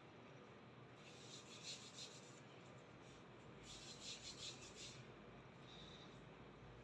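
Faint rubbing of hands and fingers over a leather wrap on a pool cue, as the wrap is pressed and smoothed down. It comes in two short bouts, about a second in and about four seconds in.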